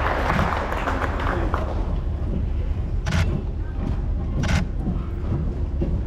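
Audience applause dying away over the first second or two, leaving a low murmur of voices with a steady low hum. Two brief sharp noises stand out about a second and a half apart near the middle.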